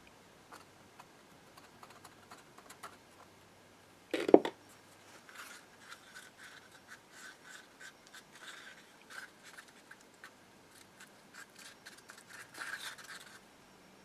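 A wooden stir stick is scraping and stirring round a cup of epoxy as fumed-silica thickener (Cab-O-Sil) is worked in, in quick repeated strokes. There is a single sharp knock about four seconds in.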